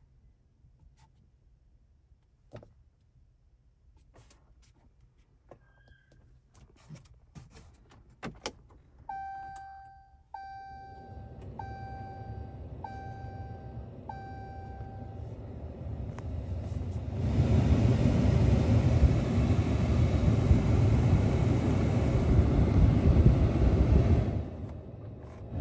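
Soft touchscreen taps, then five evenly spaced dashboard warning chimes in the Ram 3500's cab. A rush of air from the climate-control blower follows, jumping to a loud, steady blow about two-thirds of the way in and dipping briefly near the end.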